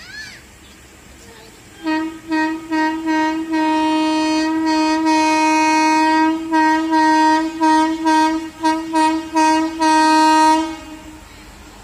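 Horn of an approaching Indian Railways passenger train, one steady tone blown as about five short toots, a long blast of nearly three seconds, about eight quick toots, then a final long blast that dies away.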